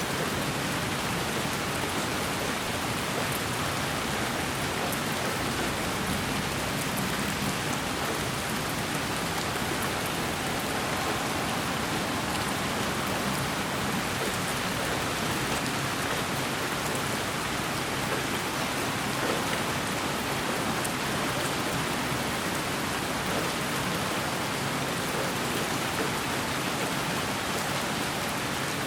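Steady, unchanging white noise with the sound of rain, with faint scattered drop-like ticks.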